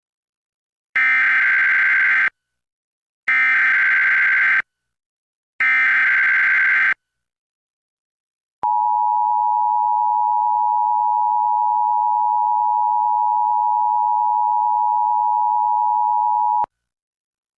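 Emergency Alert System SAME header: three bursts of data tones, about a second and a half each, followed by the two-tone attention signal (853 and 960 Hz) held steadily for about eight seconds. This opens a Required Monthly Test.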